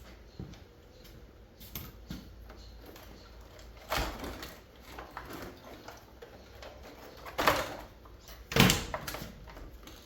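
Metal scrap parts being handled, with a few sharp knocks and clanks: one about four seconds in and two louder ones near the end, each with a short ring.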